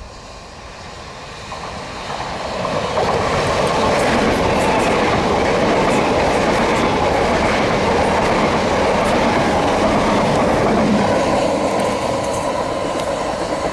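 Electric multiple-unit passenger train approaching and passing close by at speed: a rising rush of wheels on rail that holds loud for several seconds, with scattered clicks and clatter from the wheels, then eases slightly near the end.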